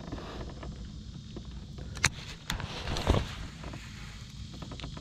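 Handling noise from a sit-on kayak and fishing gear: a couple of sharp clicks about two seconds in, then a louder knock with a brief rustle around three seconds, over a steady low rumble of wind on the microphone.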